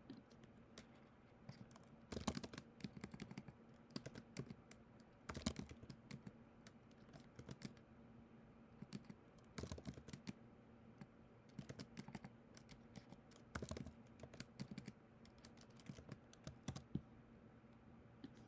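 Computer keyboard typing in irregular bursts of quick keystrokes, heard faintly over a steady low hum.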